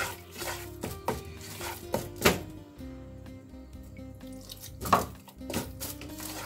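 A hand squishing and stirring a wet spice paste in a pot: irregular squelches and knocks against the pot's side, the strongest about two and five seconds in, over background music.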